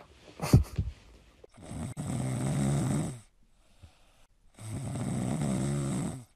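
Cat snoring: two long snores about a second and a half each, with a pause between them. A short sharp knock comes about half a second in.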